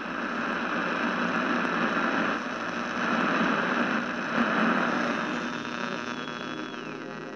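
Television-style static hiss over a steady electrical hum, used as a glitch transition effect. It swells through the middle and eases off, and near the end a thin electronic tone steps down in pitch.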